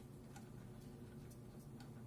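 Near silence: room tone with a few faint, scattered ticks from a screwdriver working the CPU cooler's mounting screws.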